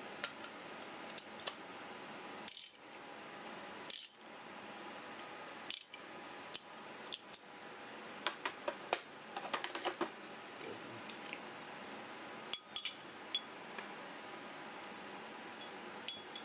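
Steel impact sockets and a chrome extension bar clinking and clicking as they are handled in a metal case. The clicks come one at a time, some with a brief metallic ring, and there is a quick flurry of clinks near the middle.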